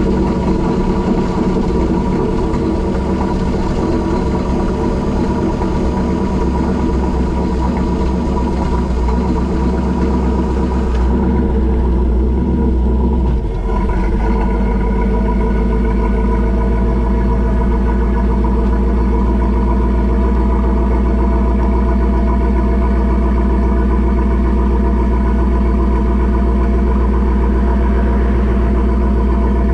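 AMC 327 V8 on Holley Sniper fuel injection idling through Hooker Aero Chamber mufflers, heard from beside the tailpipe. About halfway through the idle note changes, with a brief dip, then it runs on steadily.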